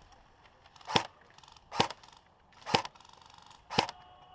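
Airsoft electric gun, fitted with an upgraded M120 spring and high-torque motor, firing four single semi-automatic shots about a second apart, each a sharp crack.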